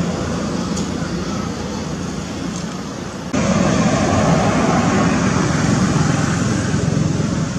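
Steady outdoor background noise with a low hum, like distant road traffic. It jumps abruptly louder about three seconds in.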